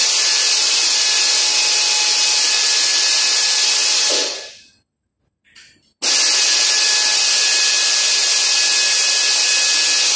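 Compressed-air blow gun blowing: a loud, steady hiss with a faint whistle, tailing off about four seconds in, then a second blast starting suddenly about six seconds in.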